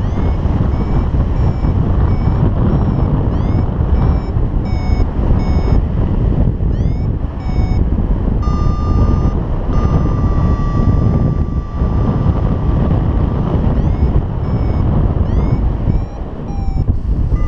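Paragliding variometer beeping in quick, short rising chirps, the sound it makes when the glider is climbing. About eight seconds in it switches to a steady, slowly falling tone for several seconds, then goes back to beeping. Under it is heavy wind rumble on the microphone.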